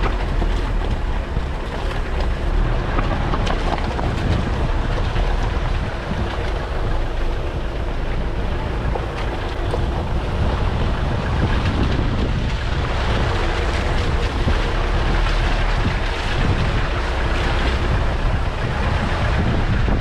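Steady wind rumble on a camera mounted outside a Land Rover, mixed with the vehicle's engine and tyres as it drives slowly up a rough dirt trail. The rumble is deepest at the bottom end and runs without a break.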